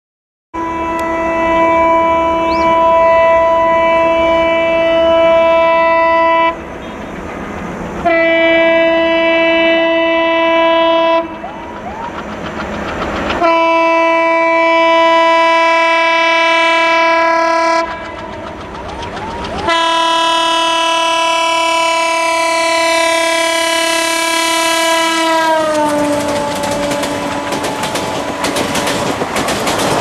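WDG-3A ALCO diesel locomotive sounding its multi-tone horn in four long blasts as it approaches, with engine and track rumble in the gaps. The last and longest blast drops in pitch as the locomotive passes, then the coaches clatter over the rail joints.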